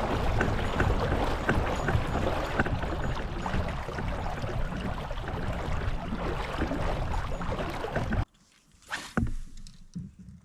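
A kayak moving on the water: a loud rushing of water, with rumbling wind on the microphone and small scattered clicks. It cuts off abruptly about eight seconds in, followed by a couple of brief, faint knocks.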